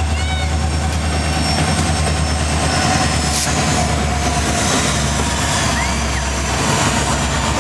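Freight train rolling past close by: a steady low rumble with the noise of the cars running over the rails.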